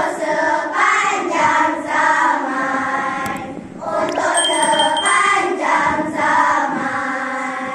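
Group of children singing a nasyid in unison, a Malay Islamic song. A little past the middle there are a couple of clicks and a short, high bell-like ding, matching a subscribe-button animation.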